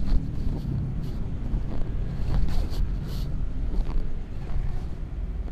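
Wind buffeting and handling noise on a phone's microphone as it is moved about: a steady low rumble with scattered knocks and scrapes.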